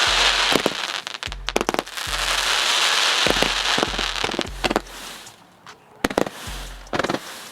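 Fireworks going off: a loud hissing crackle with sharp bangs mixed in, dying down after about four and a half seconds, then a few separate bangs near the end.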